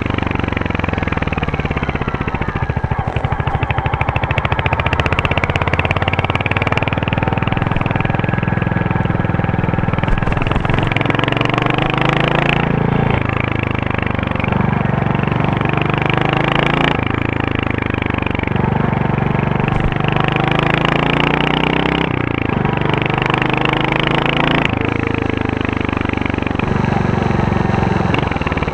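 Royal Enfield Hunter 350's single-cylinder 349 cc engine and exhaust running with a steady thump, its pitch rising and then dropping back abruptly several times as the revs or gears change.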